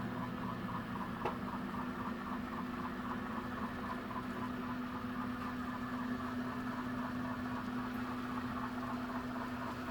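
N scale model train running on the layout: a steady mechanical hum with a faint even pulsing about three times a second, and a single small click about a second in.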